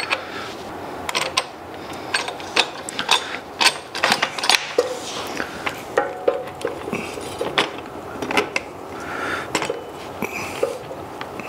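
Irregular metal clinks and knocks, some with a brief ring, as a front wheel and its spacers are worked into a mini dirt bike's front fork by hand.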